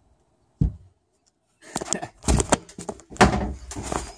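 One thump, a moment of dead silence, then a run of knocks, bumps and rustling from someone clambering down through a deck hatch into a small fibreglass sailboat cabin while carrying the camera.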